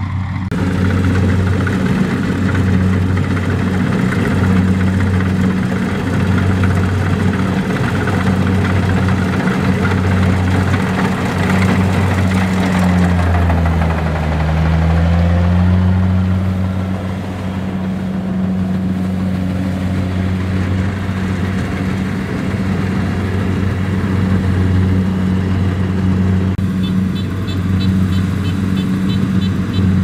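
Kubota rice combine harvester's diesel engine running steadily as the machine harvests, with its pitch sagging briefly about halfway and then recovering.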